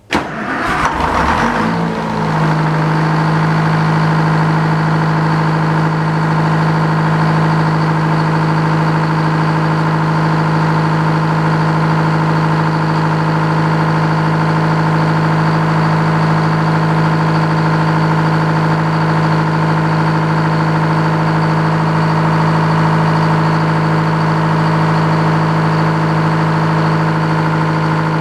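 Sawmill engine starting up and settling within a couple of seconds into a steady, even hum, running unloaded with the blade not yet engaged.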